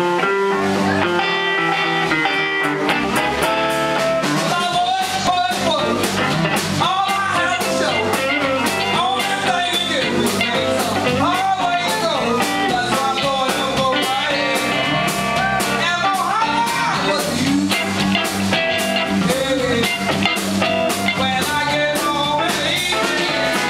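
Live electric blues band playing: archtop electric guitar, electric bass and drum kit, with a woman singing lead into a microphone from about four seconds in.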